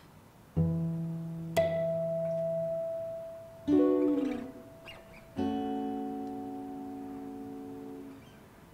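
Soundtrack music: a guitar plucks four slow notes and chords, each left to ring out and fade, the third sliding down in pitch and the last a fuller chord held for about three seconds.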